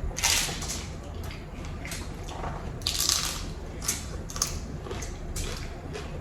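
Biting and chewing crunchy hard-shell tacos: irregular crunches, the loudest just after the start and around three seconds in.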